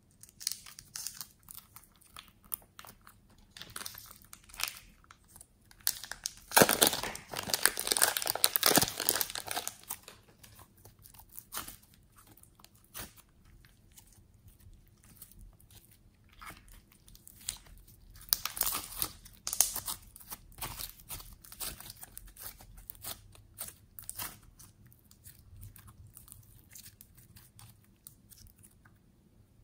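Slime being squeezed out of a plastic piping bag and handled: crinkling plastic and sticky crackles and squelches of the slime, loudest from about six to ten seconds in and again around nineteen seconds. A snip of scissors near the start.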